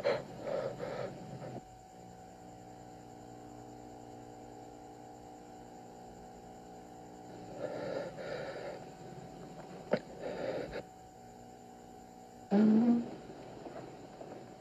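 A man's short breathy gasps and sighs, in three brief clusters, over a steady electrical hum. Near the end comes one louder vocal sound whose pitch rises.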